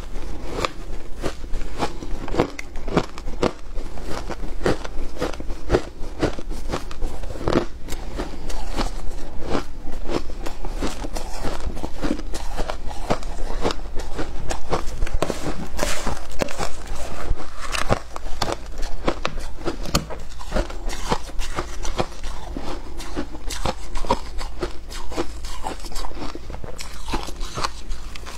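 Mouthfuls of shaved ice being bitten and chewed, a dense, irregular run of crisp crunches and crackles.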